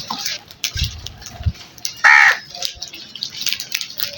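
A crow gives one loud, harsh caw about two seconds in, among scattered light clicks and a few soft low knocks.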